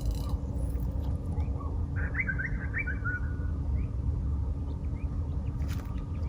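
A bird calls once, a quick run of chirping notes lasting about a second and a half, a couple of seconds in. A steady low rumble runs underneath.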